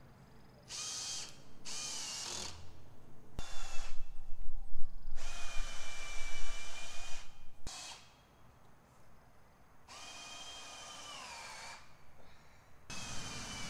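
Power drill driving screws into 2x4 lumber in several runs of one to two seconds each. Each run has a steady motor whine that drops in pitch as the trigger is released. The loudest, noisiest stretch comes about halfway through, as a screw bites into the wood.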